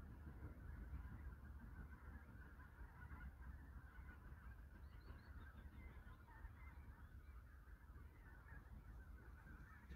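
Faint outdoor ambience: a steady, flickering chatter of distant animal calls over a low rumble of wind.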